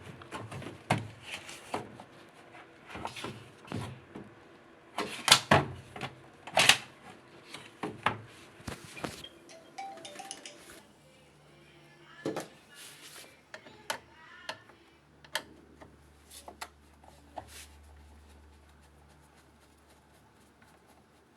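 Plastic clicks and knocks as a washing machine's panel housing is unhooked and handled, loudest around five to seven seconds in. In the second half only a faint low hum and a few sparse clicks remain.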